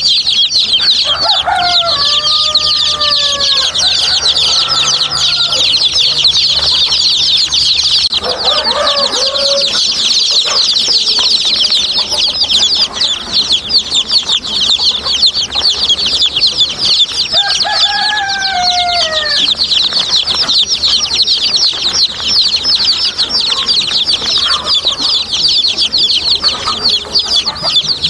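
A brood of baby chicks peeping constantly, many rapid high-pitched chirps overlapping. A lower, longer bird call with a falling pitch cuts in three times: near the start, about 9 s in, and about 18 s in.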